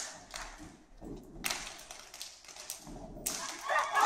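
Step team stepping: an irregular run of sharp stomps and claps with some reverberation. Shouting voices start near the end.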